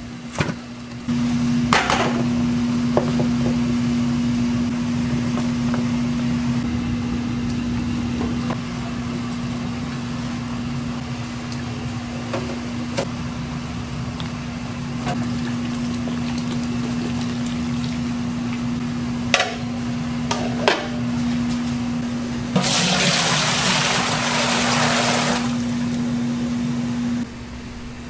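Water running and splashing over a steady machine hum, with a few sharp knocks; a louder gush of water comes near the end and lasts about three seconds.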